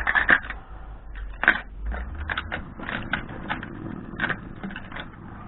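Small tools and parts clicking and rattling as they are picked through and moved around in a tool box drawer: irregular light clicks, the sharpest about a second and a half in.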